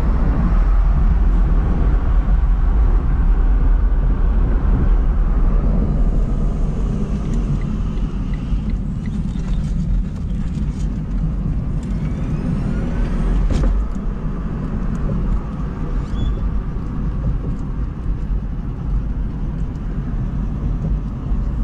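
Steady low road rumble and wind noise heard inside the cabin of an electric Smart fortwo 451 driving at speed. It eases a little after about fourteen seconds as the car slows down.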